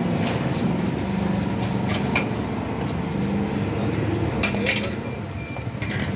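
Steel ladle scooping chickpea curry in a large steel pot, with scattered clinks and knocks of metal over a steady background din.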